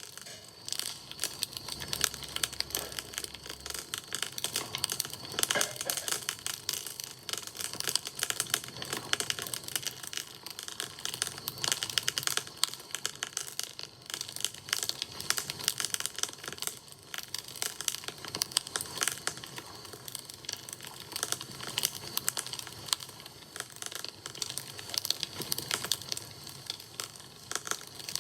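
Wood fire crackling: a dense, irregular stream of small snaps and pops.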